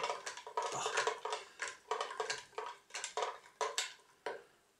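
Long bar spoon stirring ice in a glass jug of blended mango and red wine: a quick run of clinks of spoon and ice against the glass, stopping shortly before the end.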